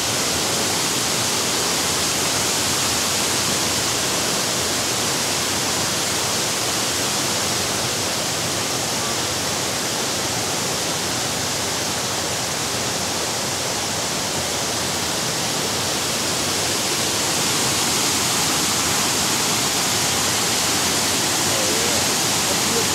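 Loud, steady rush of flowing water, an even hiss with no breaks, a little louder in the last few seconds.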